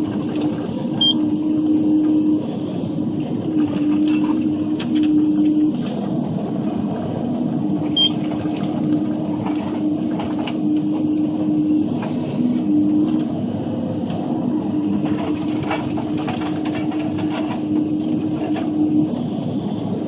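Waratah 622B log processing head at work on a diesel machine: a steady engine and hydraulic hum that steps up and down in pitch now and then, with frequent sharp cracks and knocks as the head feeds and delimbs a log.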